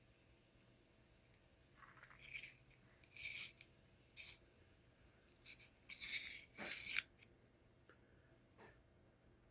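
Several short rubbing and scraping sounds, with small clicks, from wiping sand and residue out of a disassembled switchblade's handle and metal parts. The sounds come in quick strokes about two to seven seconds in, the loudest near the end of that stretch.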